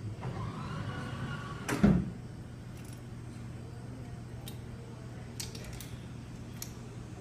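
Supplement vending machine dispensing an order: a motor whine rises and falls, then a loud thud about two seconds in as the item drops, over a steady low hum. A few light clicks come near the end.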